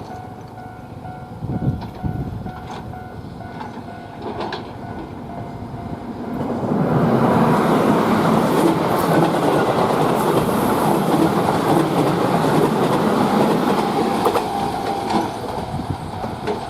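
Keihan 7200 series electric train approaching and then running past, with wheels clattering over the rail joints. The noise swells sharply about six seconds in and stays loud for about eight seconds before easing.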